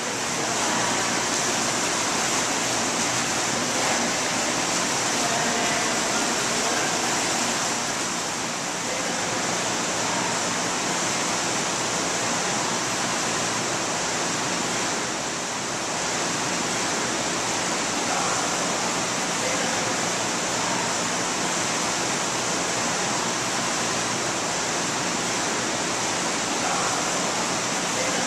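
Steady rushing water, an even, unbroken hiss with no distinct splashes.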